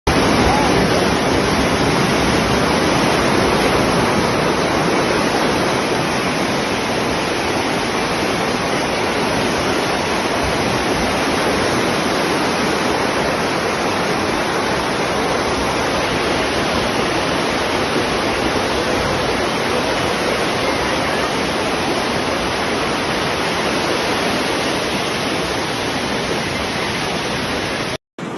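Floodwater rushing in a swollen river: a loud, steady noise of fast-moving water that breaks off briefly near the end.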